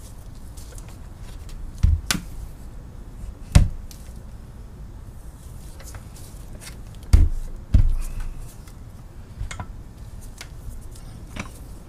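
Scattered knocks and clunks from a cast-iron machinist vise and hand tools being handled on a workbench, about seven in all, irregularly spaced, with two close together a little past the middle.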